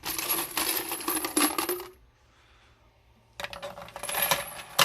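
Empty brass cartridge cases poured into the case feeder's 3D-printed hopper, clattering against each other. One pour lasts about two seconds, then a second pour starts after a short pause.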